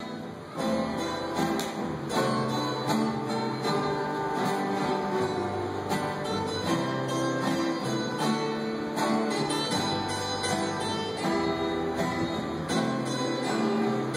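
A rondalla's plucked string ensemble playing: acoustic guitars strummed in a steady rhythm with a picked melody over them, coming in fully about half a second in.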